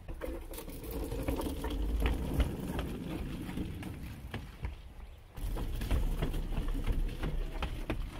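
Small stroller wheels rolling fast over wooden deck boards, a low rumble full of rapid clacks and knocks, with running footsteps on the boards. The rolling breaks off briefly about five seconds in and then starts again.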